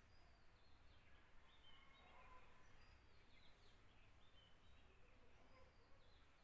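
Near silence: quiet room tone with faint, scattered bird chirps in the background.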